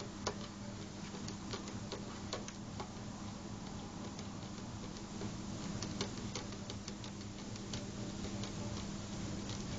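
Light, irregular taps and clicks of a cat's paws and claws striking a mirror as it swats at its reflection, over a steady low hum.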